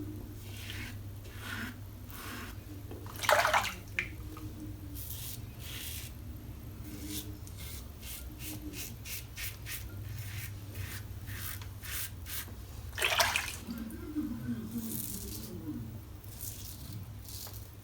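Brass Karve Christopher Bradley double-edge safety razor scraping through lathered stubble in a run of short strokes. Two louder brief swishes come about 3 and 13 seconds in, over a steady low hum.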